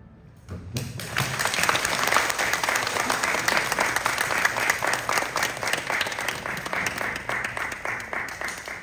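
Audience applauding: after a short hush, clapping from many hands breaks out about a second in and keeps going steadily.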